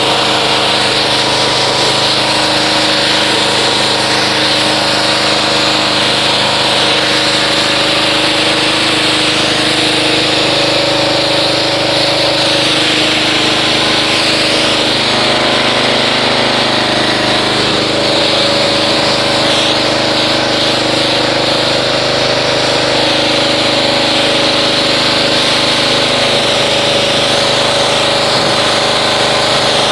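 Pressure washer running steadily, its motor-driven pump humming under the strong hiss of the water spray as it rinses foam off a car; the pump's pitch shifts slightly a few times.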